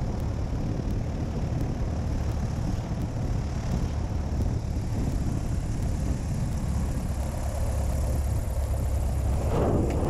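Cessna 172 engine running at low power with airflow rushing past an exterior camera, a steady low drone through the flare and touchdown on a grass strip, with louder surges near the end.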